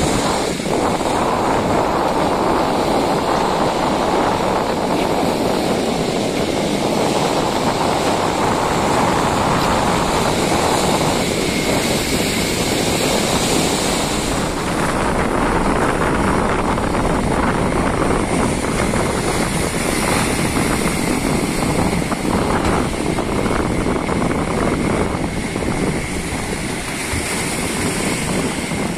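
Strong wind buffeting the microphone over heavy sea surf, a loud, steady roar with no letup.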